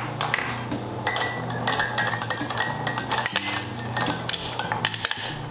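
Marbles clicking and clattering as they roll down the entrance ramp and load onto the angle brackets of the marble lift's moving conveyor belt, many short irregular clicks.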